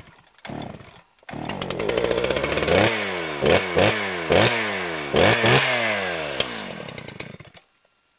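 A small engine revving again and again, its pitch falling back after each rev, then dying away near the end. Two short bursts of engine sound come in the first second, before it runs.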